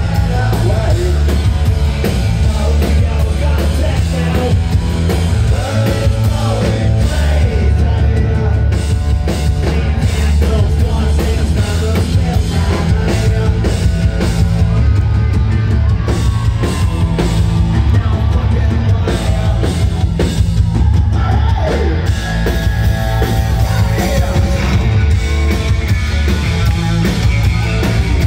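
Punk rock band playing live at full volume: drum kit, electric guitars and bass, with singing.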